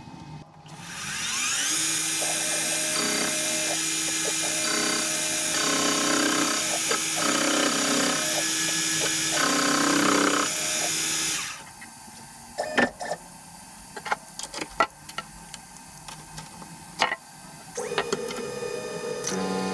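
Bench milling machine spindle spinning up with a rising whine, then a slitting saw cutting a slot through a metal part in the vise, a loud steady screech whose tone shifts as it cuts. It cuts off suddenly about eleven seconds in, followed by a few sharp clicks and knocks, and a steady hum starts near the end.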